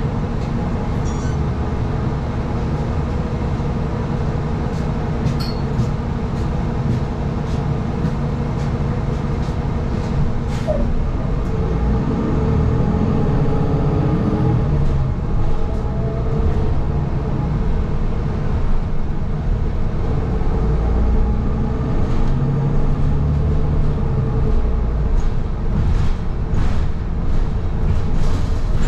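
Inside a TTC city transit bus as it drives: a steady low engine and road rumble, with scattered clicks and rattles. About halfway through, a whine rises in pitch as the bus speeds up.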